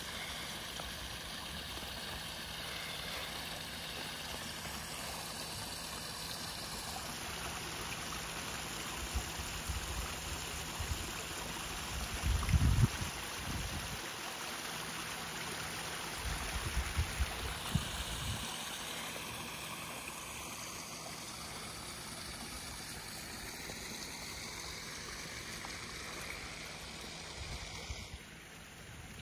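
Steady running and trickling water from a garden koi pond's rock waterfall. A few low rumbles on the microphone come in near the middle, the loudest about twelve seconds in.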